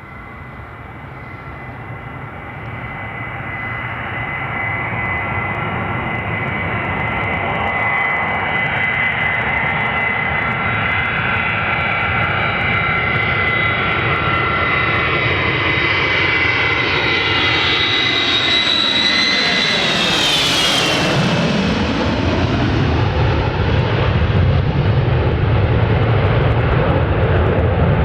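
A NATO E-3A AWACS (Boeing 707-320 airframe) on a go-around with three of its four TF33 turbofans running, growing louder as it approaches. Its engine whine drops in pitch as it passes low overhead about two-thirds of the way through, followed by a louder, deeper rumble as it climbs away.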